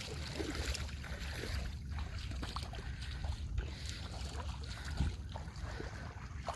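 River water lapping and splashing, with wind rumbling on the microphone and a few small knocks.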